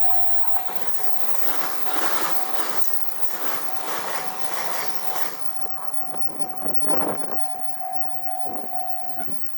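Japanese level-crossing bell ringing its rapid repeated "kan-kan" while a JR Shikoku train passes, its wheels clattering over the rail joints. The clatter dies down after about five seconds, and the bell stops near the end.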